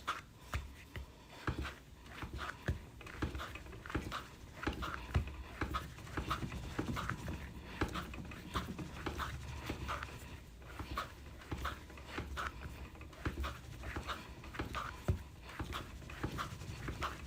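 Clay being wedged by hand on a work surface: repeated pushing, squashing strokes with dull thuds, about two a second.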